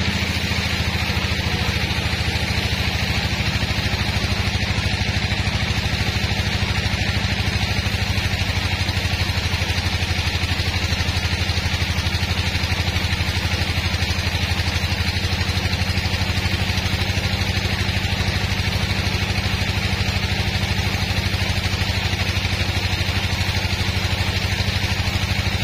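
Band sawmill running steadily, its blade cutting lengthwise through a large hardwood log, with a low, even machine drone and a hiss over it.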